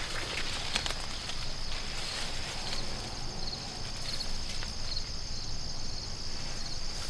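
Steady high-pitched chirring of insects in the field edge vegetation, a continuous trill, with scattered soft rustles and footsteps on dry crop stubble.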